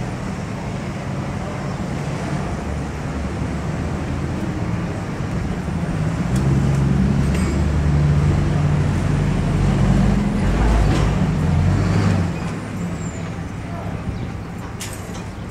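A motor vehicle's engine running close by over street traffic noise; it grows louder from about six seconds in and drops back at around twelve seconds.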